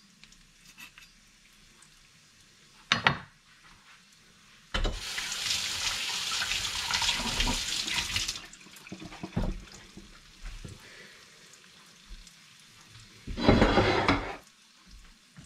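A kitchen tap running into a sink for about three and a half seconds, starting suddenly, with a second shorter rush of water near the end. A sharp knock comes just before the water, and small clanks of pots and dishes fall between the two rushes.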